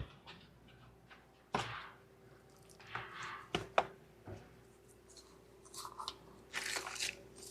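Scattered light knocks and clicks of a wiring harness and its plastic connectors being handled, over a faint steady hum.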